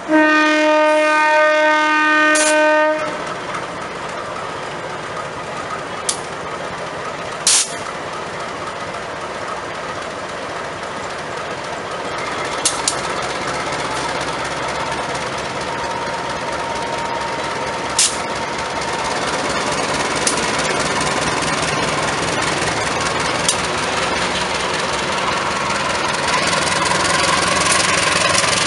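Diesel locomotive's horn sounding one steady blast of about three seconds, then the locomotive and its passenger train rolling past with the engine running and wheels on the rails, a few sharp clacks now and then, growing louder as it draws near.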